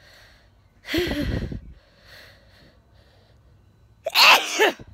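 A woman sneezing twice: one sneeze about a second in and a louder one near the end, with faint breaths between them.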